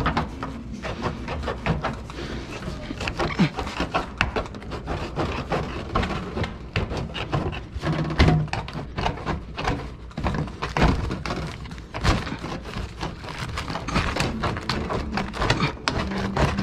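Insulated flexible duct being handled: crinkling and rustling of its foil jacket and plastic inner liner, with scattered knocks and thumps.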